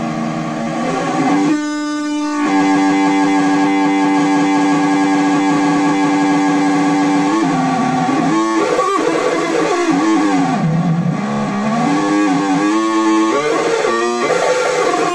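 Homemade square-wave oscillator synth, built from a Squarewave Parade 'Parade' Parasite module kit, playing buzzy electronic tones. A short noisy burst about two seconds in gives way to a steady held tone. In the second half the pitch wobbles and glides up and down.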